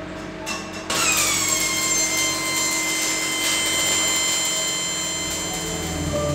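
A stick-welding arc from a restored early PowCon inverter welder prototype. A brief scratch strikes the arc about a second in, and it then burns steadily with a loud hiss and a steady high-pitched whine.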